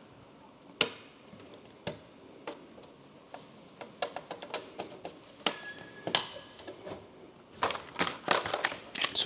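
Irregular sharp clicks and taps of RAM sticks being pressed into a desktop PC's motherboard memory slots and handled in their clear plastic packaging, with a quick run of clicks near the end.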